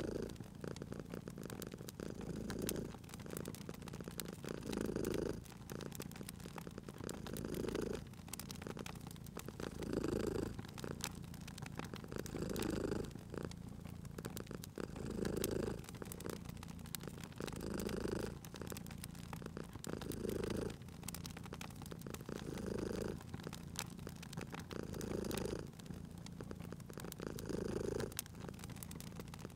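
A cat purring, the purr swelling and fading about every two and a half seconds with each breath, over the scattered pops and crackles of a fire in a fireplace.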